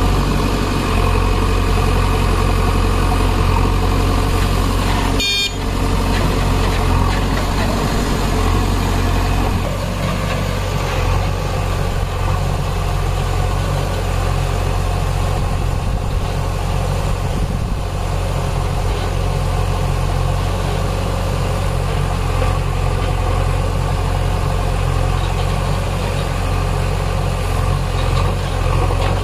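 Diesel engines of a JCB backhoe loader and a Mahindra Arjun tractor running steadily while the backhoe loads soil into the tractor's trolley. There is a brief break about five seconds in, and the engine note shifts slightly near ten seconds.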